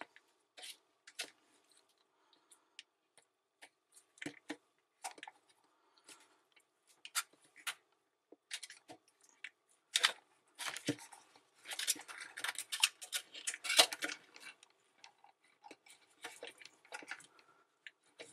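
Irregular small clicks and taps of a bent wire tool and fingers working against a dishwasher's plastic sump and stainless-steel tub, with a denser stretch of scraping and rustling from about ten to fourteen seconds in.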